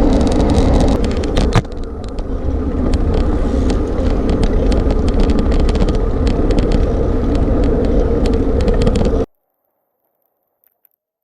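Wind rushing over the microphone of a camera riding along on a road bike, with scattered clicks and a sharp knock about a second and a half in. It cuts off abruptly about nine seconds in.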